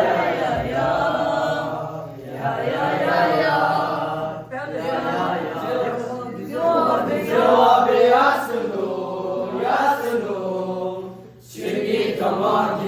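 Several voices chanting together in long phrases broken by short pauses, over a steady low hum.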